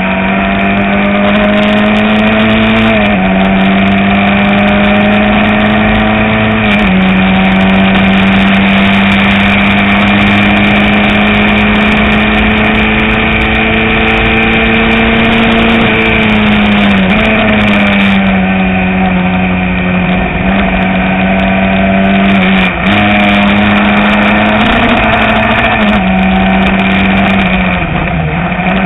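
Open-wheel single-seater race car's engine at full throttle, heard on board. It climbs slowly in pitch through each gear and drops sharply at every shift, about 3 and 7 seconds in, again after a long pull near the middle, and a few more times near the end. A steady rush of wind and road noise lies underneath.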